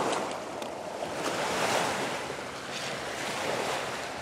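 Surf washing onto a shingle beach, swelling and easing every second or two, with a few light clicks of pebbles being handled in the first second or so.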